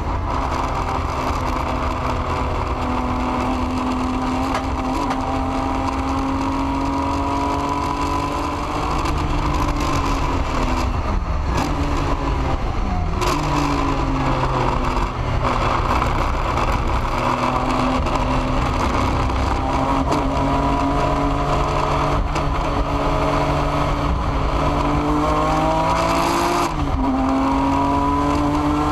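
A BMW M3 GTR race car's engine at full throttle, heard from inside the cockpit. Its pitch climbs slowly through long pulls, falls away in steps about 11 to 13 seconds in, climbs again, and drops suddenly near the end.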